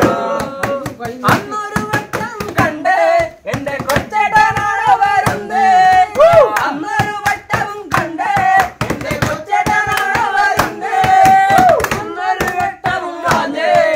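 Men singing together in a group, beating time with rapid hand slaps on a tabletop and hand claps.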